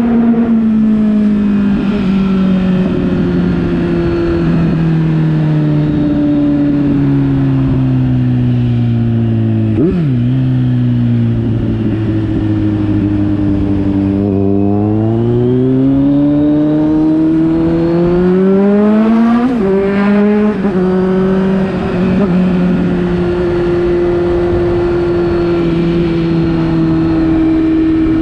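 Kawasaki Z900's inline-four engine through an aftermarket replica Akrapovic exhaust. The engine note falls slowly for about ten seconds, gives a short sharp blip, rises for about five seconds, blips again, then holds steady.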